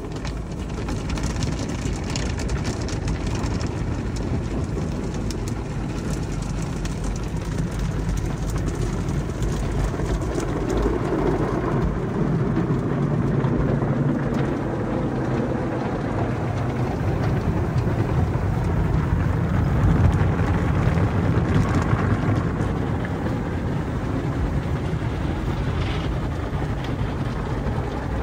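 Automatic tunnel car wash heard from inside the car's cabin: water spraying and running over the windshield and glass, over a steady rumble of the wash machinery that grows heavier in the middle.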